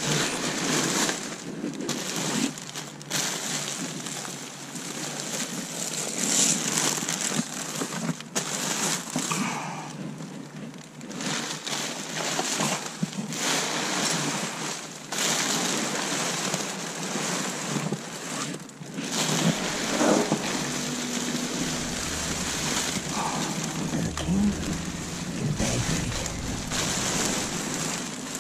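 Steady rain falling, with irregular knocks and rustles through it.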